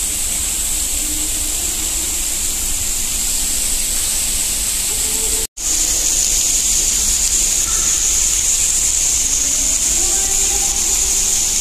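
Artificial indoor rain of the Rain Room installation pouring steadily onto the floor: a dense, even hiss of falling water. It cuts out for a split second about five and a half seconds in, then carries on.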